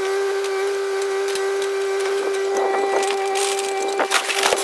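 Kubota KX057 mini excavator running with a steady whine from its engine and hydraulics; over the last couple of seconds its bucket bites into the wrecked fiberglass boat, with a burst of crunching and splintering.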